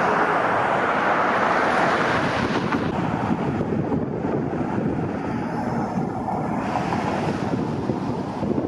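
Wind buffeting the microphone, a steady noisy rumble, strongest in the first few seconds.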